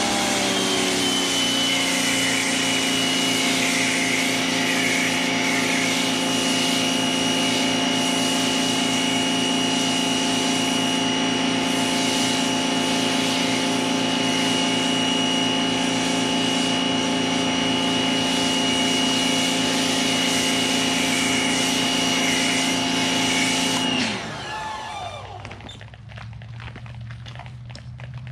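Greenworks electric pressure washer's motor and pump starting up with a rising whine and running steadily while spraying through a foam cannon. About 24 s in it shuts off, its pitch falling as it winds down.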